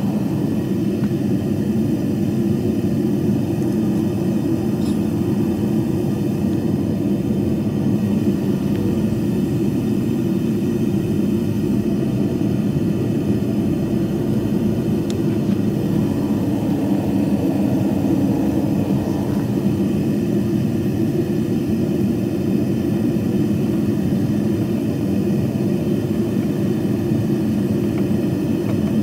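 Steady, even roar of a metal-melting furnace running at full fire.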